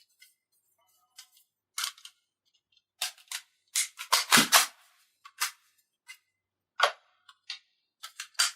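Irregular sharp clicks and clacks of an airsoft pistol's slide and frame parts being handled and fitted back together, with a quick cluster of louder clacks around the middle.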